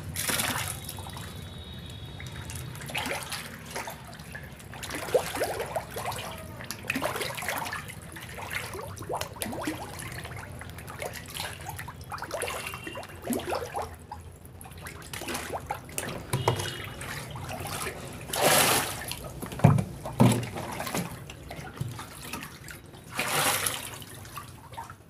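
Water sloshing and splashing in a shallow fish pond as fish stir at the surface, in uneven bursts, with two louder splashes about 18 and 23 seconds in.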